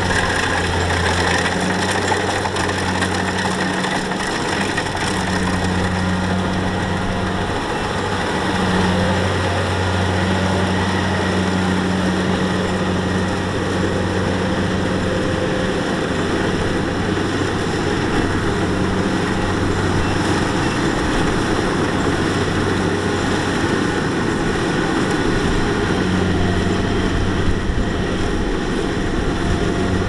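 Kubota combine harvester running steadily, its diesel engine giving a low, even hum under a dense mechanical noise.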